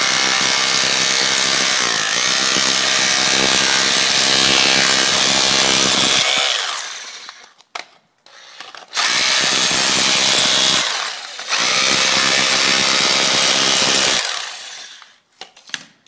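Bosch hammer drill with a wide spade chisel bit hammering, chipping ceramic floor tiles off a concrete floor. It runs for about six seconds, stops, then runs in two shorter bursts with a brief pause between them.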